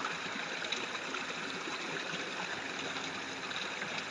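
A steady, even rushing noise, like running water, with nothing else standing out.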